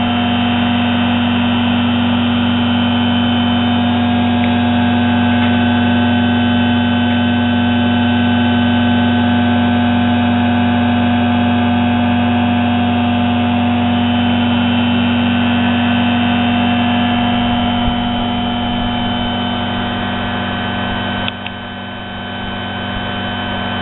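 Steady, loud electrical hum with several fixed high tones over it. A click comes about 21 seconds in, the hum drops a little, and then it cuts off abruptly at the end.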